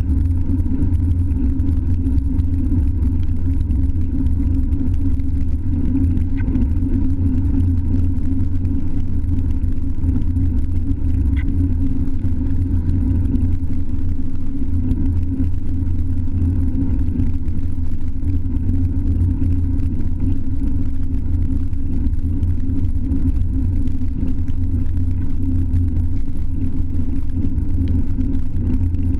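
Steady low rumble of wind buffeting the microphone of a handlebar-mounted GoPro Hero 3 on a moving road bike, mixed with road rumble carried through the mount.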